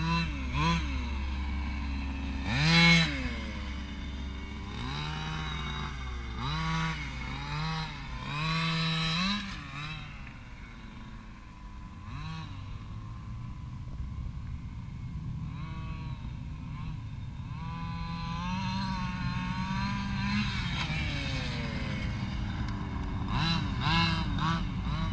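Small two-stroke gas engine of a Losi DBXL large-scale RC buggy, revving up and down in quick bursts as it is driven over the jumps, with a longer held rev about three-quarters of the way through. The loudest burst comes about three seconds in.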